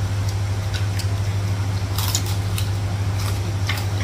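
Light clinks and taps of plates, cups and utensils as people eat, scattered a few times a second, over a steady low hum.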